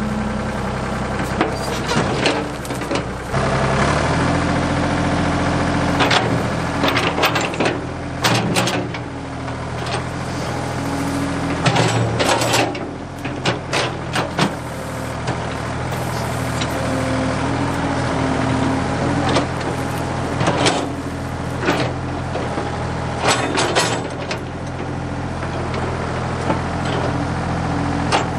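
Ford 555 backhoe's engine running steadily, its pitch shifting about four seconds in, with repeated sharp cracks and knocks throughout.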